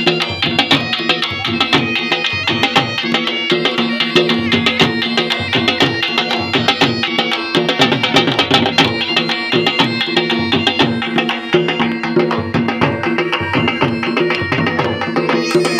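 Saraiki jhumar music: fast, dense drumming under a held, steady melody.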